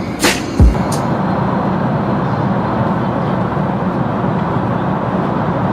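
Last two booming kick-drum beats of hip-hop music in the first second, then the steady rushing drone of an airliner cabin in flight.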